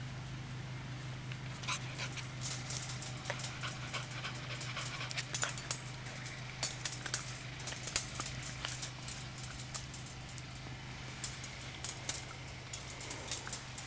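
Australian Shepherd puppy moving about, making a run of irregular sharp clicks and scratches over a steady low hum.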